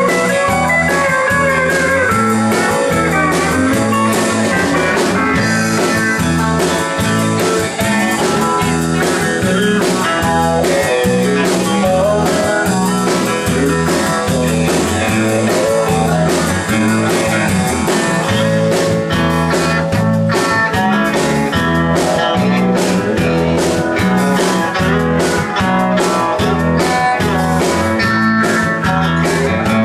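Live country-rock band playing an instrumental passage: electric guitars over a pulsing bass line, with the beat turning more percussive about two-thirds of the way through.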